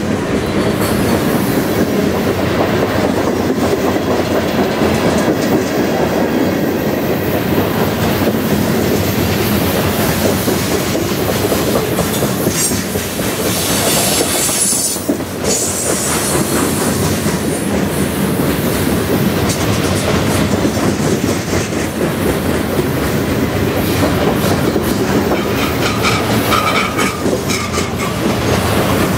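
Loaded centerbeam lumber flatcars of a freight train rolling past close by, steel wheels clattering steadily over the rail joints. A brief high wheel squeal comes about halfway through.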